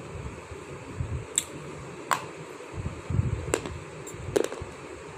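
Soft slate stone being bitten and crunched close to the microphone: four sharp, crisp cracks spread over a few seconds, with low muffled rumbling between them.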